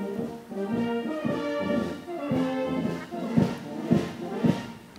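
Brass band playing a tune of held brass notes and chords. Near the end come three loud thumps about half a second apart, after which the music drops away.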